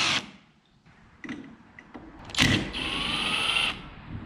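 Milwaukee Fuel brushless cordless power tool backing out the loader valve manifold's mounting bolts: a short burst, then about two seconds in it runs again for about a second, its motor whine rising slightly in pitch.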